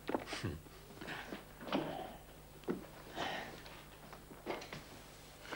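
A few light knocks and soft rustles of someone moving about a small room, over a faint steady low hum.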